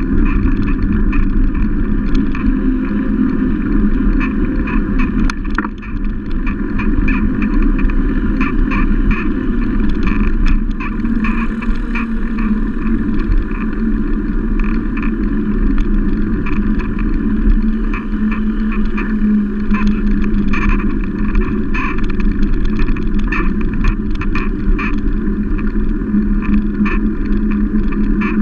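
Steady road and wind rumble picked up by a camera mounted on the handlebars of a moving bicycle, with frequent small clicks and rattles of the mount over the asphalt.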